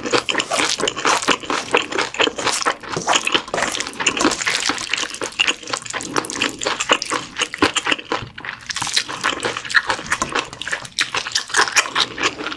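Wooden spoon stirring and mashing bibimbap in a stainless steel bowl: rice mixed with radish salad, yeolmu kimchi, tuna, gochujang and sesame oil, making a steady stream of wet, sticky squelches and quick clicks.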